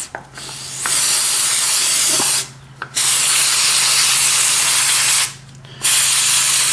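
Aerosol carburetor cleaner sprayed through its red extension straw onto a dirty lawn-mower carburetor to knock off the outside grime: three long hissing bursts, the first starting about a second in, with short breaks between them.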